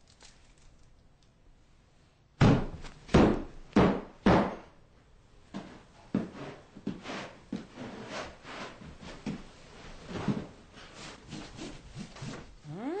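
Heavy footsteps on a floor: four loud thuds about half a second apart a couple of seconds in, then lighter, irregular steps and knocks.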